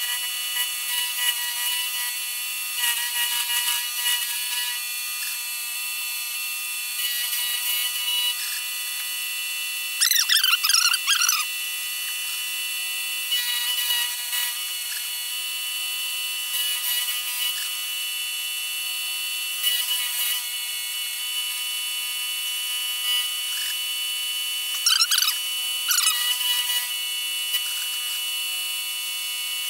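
Milling machine cutting metal with a 3/4 inch high-speed-steel end mill: a steady machine whine with an uneven cutting chatter, and louder wavering tones about ten seconds in and again about twenty-five seconds in.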